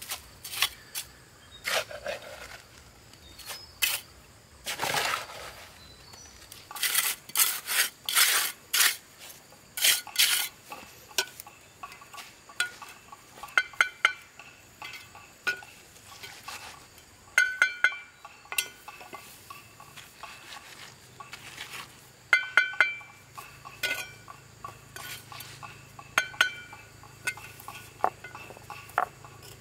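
Irregular clinks and knocks of hard objects, some with a short metallic ring.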